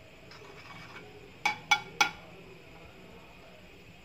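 Steel spoon clinking against a non-stick frying pan three times in quick succession, about a second and a half in, as ginger-garlic paste is stirred in hot oil, each clink ringing briefly.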